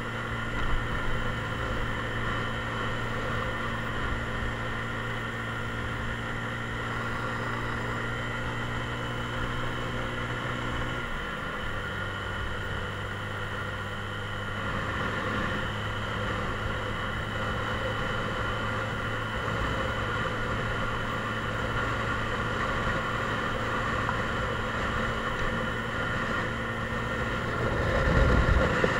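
Mondial Drift 125 motorcycle's 125 cc engine running steadily while riding along, heard from the bike; its note steps down slightly about eleven seconds in. A louder low rumble comes near the end.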